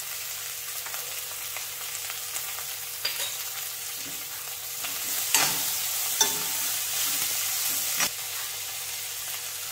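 Fiddlehead ferns sizzling in hot oil in an aluminium wok, stirred with a steel spoon. The spoon clicks against the pan a few times, and the stirring and sizzling are loudest from about halfway through until near the end.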